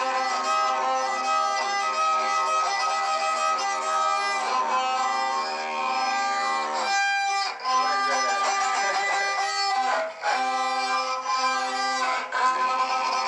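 Violin and didgeridoo improvising together: a steady pitched drone with violin lines over it. The drone breaks off briefly a few times in the second half.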